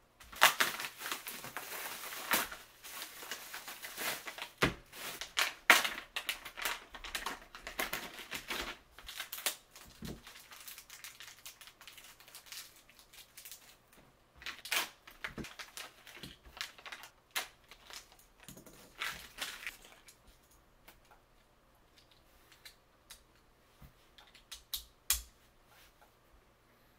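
Cardboard box and plastic packaging of a Beyblade X booster being torn open and crinkled, with many small clicks, followed by sparse plastic-and-metal clicks as the spinning top's parts are handled and fitted together.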